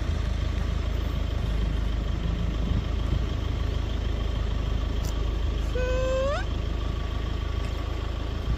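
Vehicle engine idling with a steady low rumble. About six seconds in, a short pitched call sweeps sharply upward.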